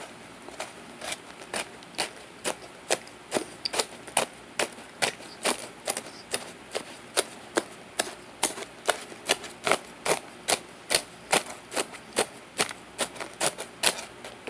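Someone chewing hard starch crumbles, with sharp crunches at a steady pace of about two a second.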